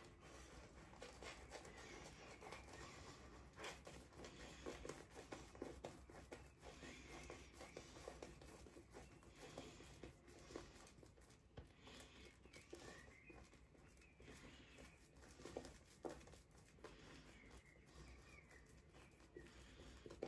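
Faint wet swishing and irregular crackling of a shaving brush working shaving-soap lather over the face during the first lathering pass.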